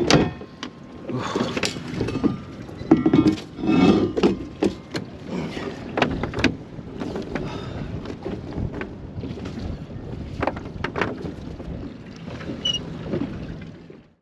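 Anchor rope being hauled in hand over hand and dropped onto a boat deck: irregular knocks and rope rustles over a steady background hiss, cutting off at the very end.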